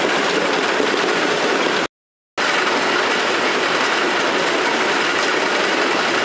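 Cucumber sorting and packing-line machinery running with a steady mechanical noise. The sound cuts out completely for about half a second around two seconds in, then the same steady noise resumes.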